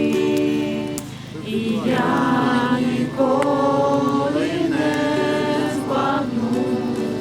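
A group of voices singing a worship song together, holding long notes in phrases, with a short breath about a second in.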